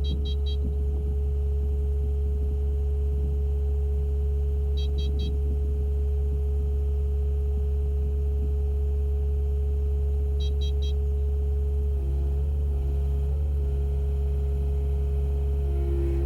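Diesel engine of a Kubota mini excavator running steadily at idle with a steady hum, with the hydraulic hammer not running. Three short bursts of rapid high beeps come about five seconds apart.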